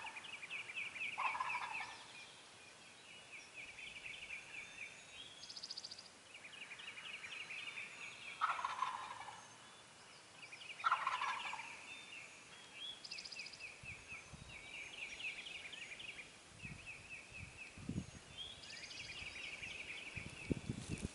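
Wild turkey gobblers gobbling three times, about a second in and twice more around the middle, over repeated high trilling bird calls. Low thumps come near the end.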